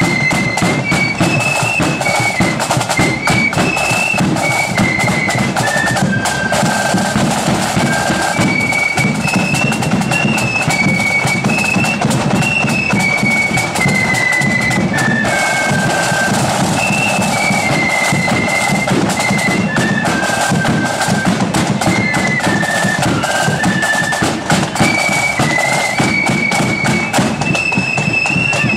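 Flute band playing a tune in unison on flutes, with drums keeping the beat beneath. The high melody steps up and down in short notes and longer held ones.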